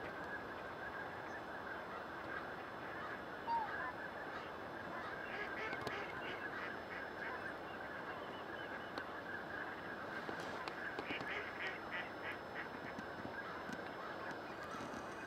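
A large flock of waterfowl calling together: a steady massed chorus of calls, with clusters of clearer calls twice and one brief louder call.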